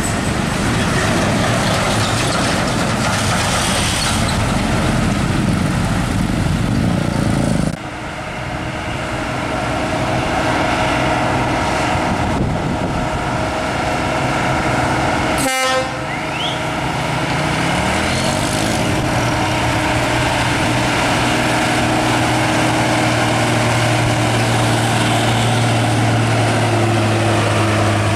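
Heavy Hino diesel trucks pulling loaded up a tight bend one after another, engines working hard under load. The sound changes abruptly twice, about 8 and 16 seconds in. An engine's pitch rises a little after 17 seconds, then a strong steady low engine drone carries on to the end.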